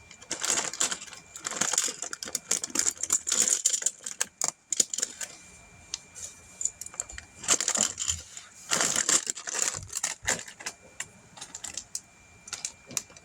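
Loose plastic Lego pieces rattling and clicking as a hand rummages through them, in irregular bursts with short pauses.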